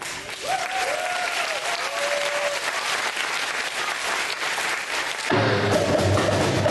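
Audience clapping in a school gym for about five seconds, then the children's percussion group comes in suddenly on djembes and other drums, louder, near the end.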